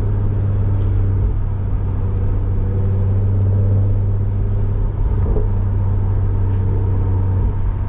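Infiniti Q50's engine and loud aftermarket exhaust droning steadily at a constant pitch while cruising, with a brief dip about five seconds in.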